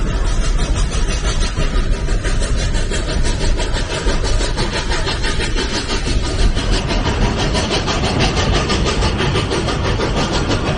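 Running noise of a narrow-gauge passenger train in motion, heard from a coach window: a steady rumble and rush from the wheels and rails, with a fast regular pulsing setting in about seven seconds in.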